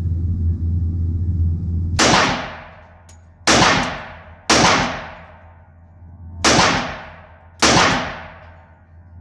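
Five shots from a Glock 41 pistol in .45 ACP, fired singly at an uneven pace over about six seconds, each with a long echoing decay. A steady low hum runs under the first two seconds before the first shot.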